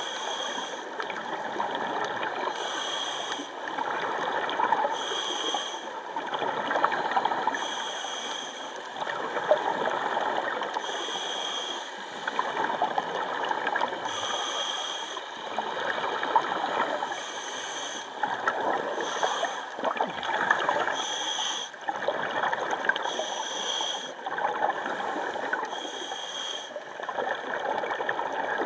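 Scuba diver breathing through a regulator underwater: continuous bubbling and gurgling, with a short higher-pitched hiss recurring about every two and a half seconds.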